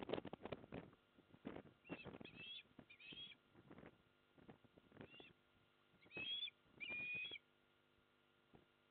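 About six short whistled osprey calls, some in quick pairs, spread over several seconds. A cluster of knocks and bumps comes in the first second and a half, briefly the loudest thing.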